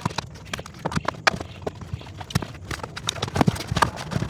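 Irregular knocks, taps and clicks from hands and tools working on wiring and a plastic electrical box in an RV storage compartment, coming several times a second at uneven spacing.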